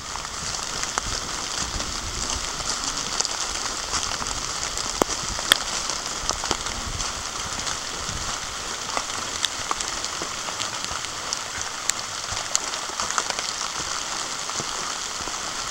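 Steady rain falling through woodland, an even hiss with scattered sharp ticks of drops landing close by.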